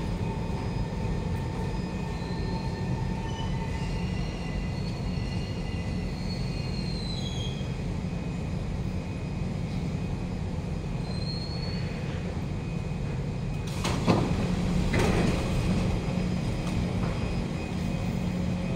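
Kawasaki Heavy Industries C151 metro train at an underground platform: a steady low rumble with a few faint high squeals from the wheels in the first half. Two brief loud rushes come about fourteen and fifteen seconds in.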